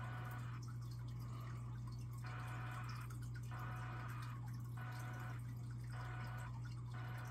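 A steady low hum under faint dripping of rainwater.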